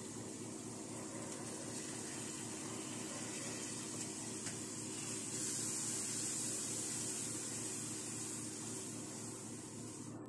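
Onion-tomato masala frying in oil in a kadhai, a steady sizzling hiss that swells slightly midway as it is stirred with a spatula.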